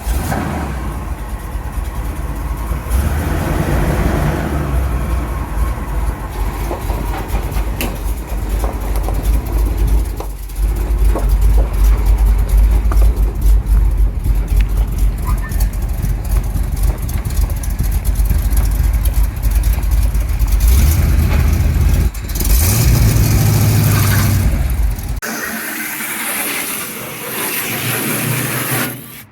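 1975 Chevrolet C10 pickup running, a steady low engine rumble that rises briefly in pitch as it revs and then cuts off a few seconds before the end.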